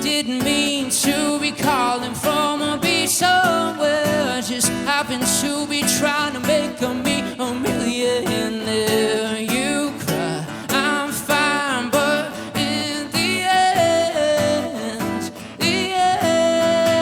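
Live band music: guitars playing with a singing voice over them.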